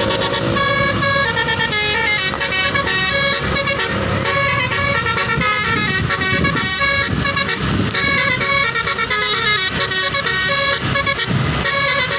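Bus 'telolet' horn: a set of multi-tone air horns playing a fast stepping melody, the notes changing several times a second.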